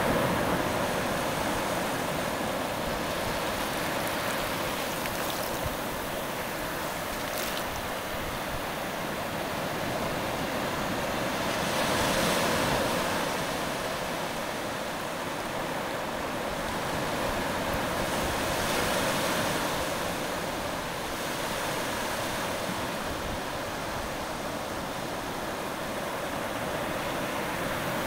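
Ocean surf washing up and back over a sandy beach at the water's edge: a steady rush of water that swells louder about twelve seconds in and again around nineteen seconds.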